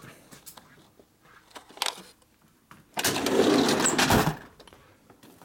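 Faint clinks of steel washers being picked from a parts drawer, then a metal drawer sliding shut on its runners with a loud rattle for about a second, ending in a knock.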